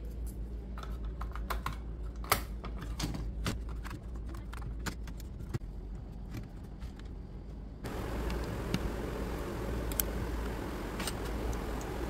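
Scattered small clicks and taps of plastic and metal laptop parts being handled: components and the motherboard of an opened HP laptop being fitted by hand. About eight seconds in, a steady background hiss grows louder and only a few sharp clicks remain.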